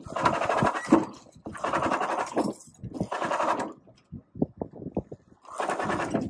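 Sailboat winch turning in four short bursts of about a second each, its ratchet clicking rapidly, while the mainsail is reefed into the in-boom furler. A few single clicks fall in the pause before the last burst.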